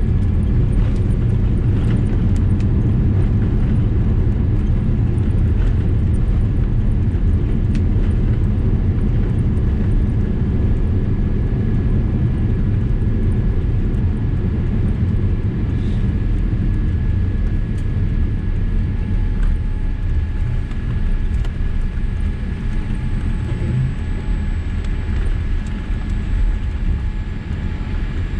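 Cabin noise of a Boeing 787-8 in its landing rollout, ground spoilers up: a loud, steady low rumble of jet engines and wheels on the runway that eases a little in the second half as the aircraft slows.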